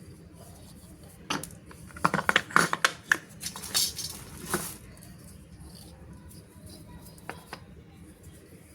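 A burst of clicks, taps and rustling from objects being handled, lasting about three seconds from just over a second in, then a few faint ticks.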